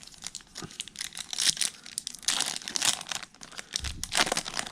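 Foil wrapper of a Topps Chrome baseball card pack being torn open and crinkled by hand, in a run of crackling rustles with louder bursts.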